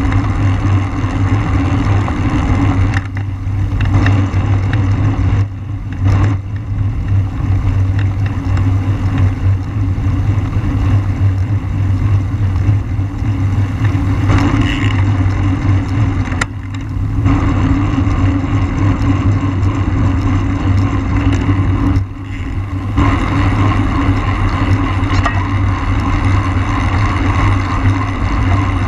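Wind rushing and buffeting over the microphone of a camera riding on a racing bicycle, with a steady low rumble from tyres and road. It dips briefly a few times.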